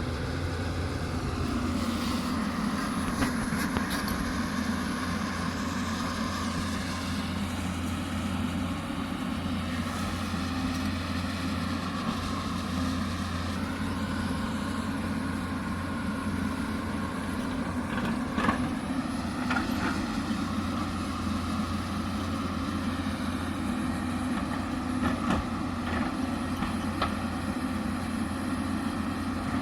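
Hyundai 220 crawler excavator's diesel engine running steadily while it works. Its pitch drops in the first couple of seconds, and a few sharp knocks come in the second half.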